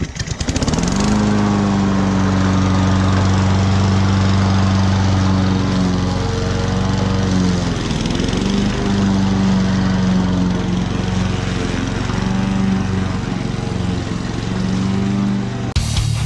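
Walk-behind gas push mower starting up and running at a steady speed as it cuts tall grass, its engine note sagging briefly a couple of times under load. Rock music cuts in near the end.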